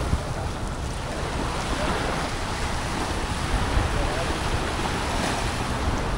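Wind buffeting the microphone, a steady low rumble over the rushing wash of small waves at the shore.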